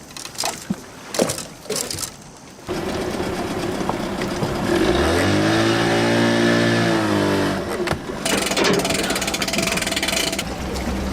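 A few knocks and clicks, then a boat motor starts running, revs up with its pitch rising, holds, and drops back. Near the end a rushing wind-and-water noise joins a steady low hum as the boat moves off.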